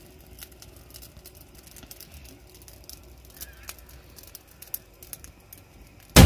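Quiet outdoor ambience: a faint low rumble with scattered small clicks and crackles. Loud music cuts in suddenly at the very end.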